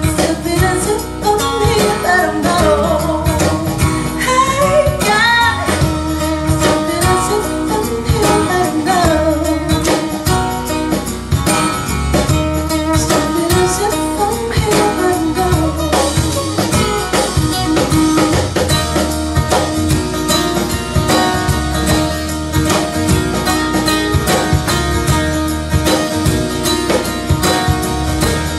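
A song with a singer, guitar and tambourine played over a high-end hi-fi system, Wilson Audio Sabrina loudspeakers. The voice drops out about halfway through, leaving the instruments.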